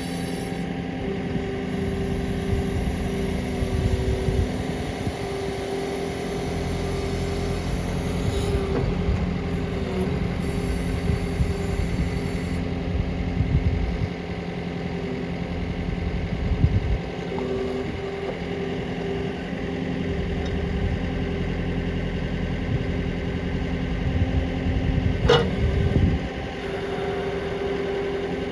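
Hydrema 906F backhoe loader's diesel engine running steadily, with a single sharp knock near the end.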